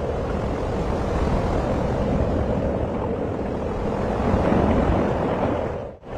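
Strong tornado wind rushing steadily and buffeting the phone's microphone. It grows louder for a moment a little past the middle and drops out briefly near the end.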